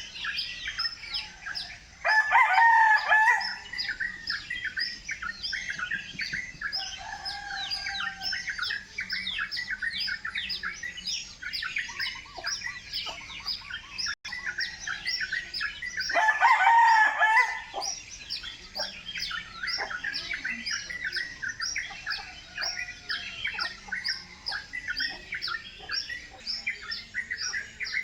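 Chickens: a constant stream of rapid, high-pitched chirping, broken twice by a louder rooster crow lasting about a second and a half, about two seconds in and again about sixteen seconds in.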